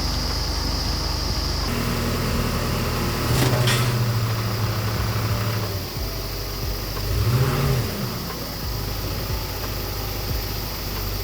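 A delivery truck's engine running, held at a higher speed for a couple of seconds about three seconds in, then a short rev that rises and falls about seven seconds in.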